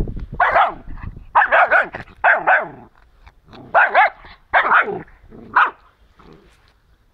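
Dog barking in a run of short high-pitched yaps, in about six bursts, some of them doubled, ending about six seconds in.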